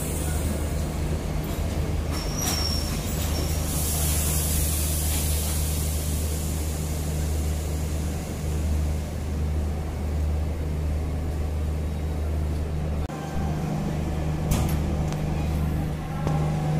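Passenger coaches of a departing train rolling past on the rails: a steady low rumble and hum with wheel hiss. A few sharp knocks come from the wheels, and a brief high squeal sounds about two and a half seconds in.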